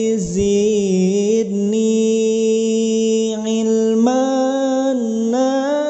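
A voice chanting an Arabic dhikr supplication in long, drawn-out held notes, its pitch moving in slow steps, rising about four seconds in and dipping briefly near the end.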